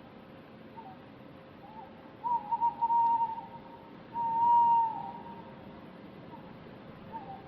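Distant owl hooting: a few faint short hoots, then a wavering hoot about two seconds in and a long steady hoot about four seconds in that drops in pitch at its end, over a low background hiss.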